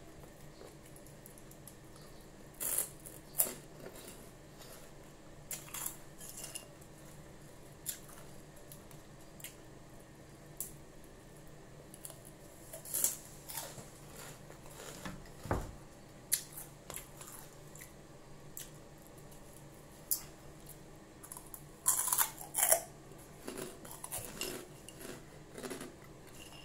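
Crispy chicharon (fried pork rind) crunched and chewed close to the microphone: scattered sharp crunches, with a louder burst of them about three-quarters of the way through and a dull bump near the middle.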